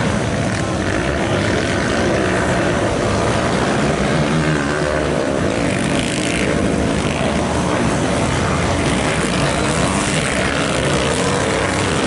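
Several motocross dirt-bike engines revving on a race track, a continuous buzzing mix whose pitch rises and falls as the riders accelerate and ease off.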